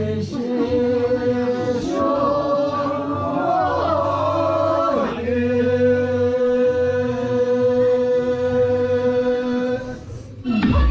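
A group of Sherpa men and women singing together, a slow chant-like song with long held notes. The singing breaks off just before the end.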